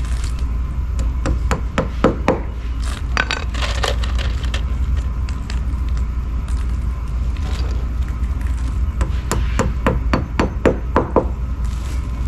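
Hammer tapping wall anchors into holes drilled in brick: a run of sharp knocks in irregular clusters, thickest near the end.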